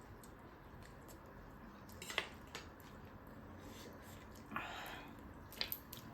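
Someone biting and chewing crunchy chips close to the microphone: a few sharp crunches about two seconds in, a short crackly burst in the middle, and more crunches near the end.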